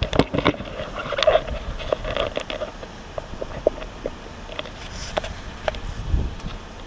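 Rummaging at a metal dumpster full of plastic wrap and cardboard: irregular clicks, knocks and crinkling, busiest in the first two and a half seconds, with a low thud about six seconds in.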